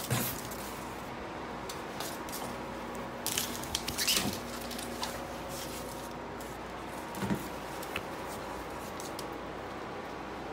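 Household goods being handled by hand: a sharp knock at the start, bursts of rustling about three to four seconds in, and a lighter knock a little past seven seconds.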